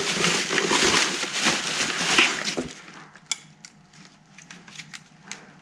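Paper bag rustling and crinkling as hands rummage inside it for about the first three seconds. Then a few light clicks as an object is handled.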